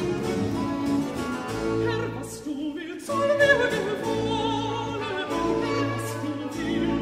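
Baroque cantata music: a solo voice singing over strings and continuo, with a sustained bass line; the upper parts thin out briefly about two seconds in, then resume.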